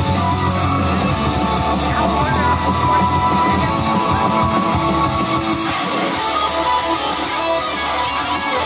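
Upbeat idol-pop song with strummed guitar, played loud over the stage speakers.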